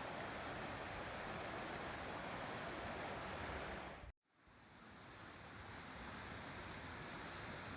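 Steady rushing of a mountain stream. It cuts out abruptly a little after four seconds in, then fades back up.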